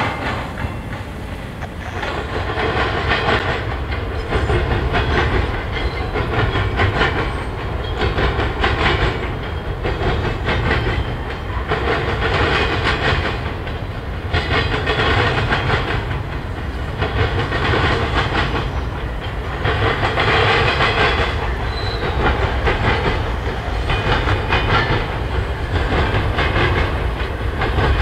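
Intermodal freight train rolling past: a steady rumble of railcars with the clatter of wheels on the rails, swelling and fading every couple of seconds.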